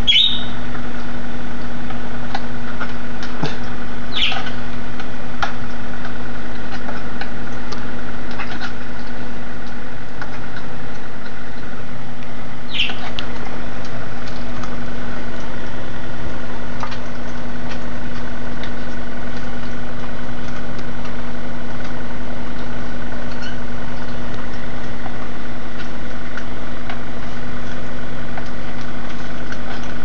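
Humidifier running with a loud, steady hum. A cockatiel perched on it gives three short chirps: one at the start, one about four seconds in and one about thirteen seconds in.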